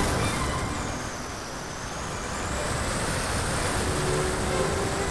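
Air rushing over the wing-mounted onboard camera of a Multiplex Cularis model glider in flight, easing off about a second and a half in and then building again. A faint high whine rises and falls in pitch through the rush.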